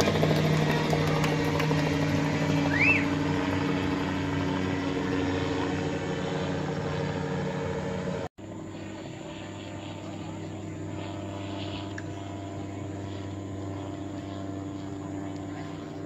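Off-road rally car's engine running steadily as it crawls over a boulder-strewn riverbed, slowly fading. The sound cuts off abruptly about eight seconds in, and a quieter, steady engine drone follows.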